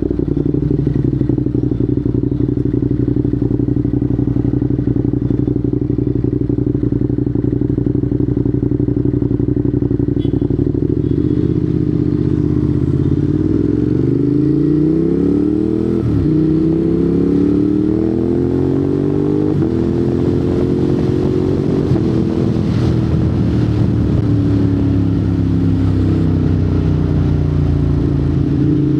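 Ducati Monster 821's 821 cc Testastretta V-twin running through a Termignoni exhaust while riding. It holds a steady note at first, then from about halfway the revs climb several times in quick steps, as when accelerating through the gears, and near the end they fall away as it slows.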